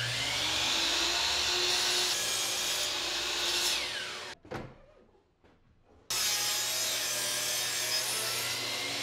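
DeWalt miter saw cutting bevels on oak posts: the blade runs through the wood, then winds down with a falling whine about four seconds in. After a short quiet gap, a second cut starts abruptly and runs on.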